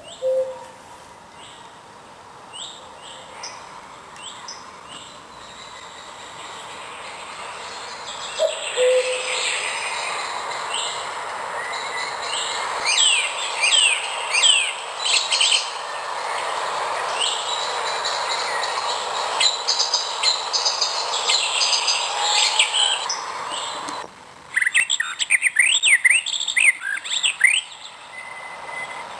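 A Philips Wake-Up Light's alarm playing a recorded natural wake-up sound through its small speaker: birdsong chirps over a steady hiss of background noise, fading in and growing louder over the first ten seconds or so. Near the end it switches abruptly to the second nature sound, busier birdsong without the background hiss.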